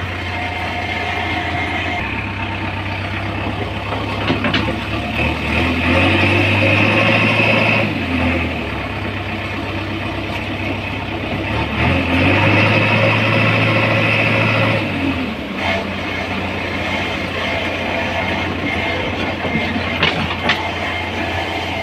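Diesel engine of a JCB 3DX backhoe loader running, its revs rising and the sound growing louder twice for a few seconds at a time as it works. A few short knocks stand out over the engine.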